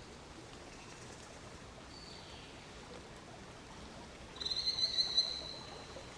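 Steady rain with a bird calling over it: a short high note about two seconds in, then a louder, warbling high call lasting just over a second, starting about four and a half seconds in.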